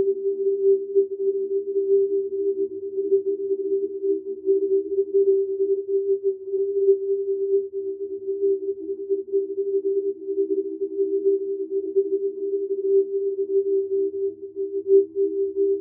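Steady drone of a few low held tones that waver quickly in level: an ambient background music drone.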